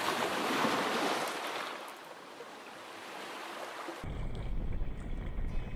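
Small Lake Superior waves washing over a rocky beach, swelling and then easing off. About four seconds in, this cuts abruptly to music over a heavy low rumble.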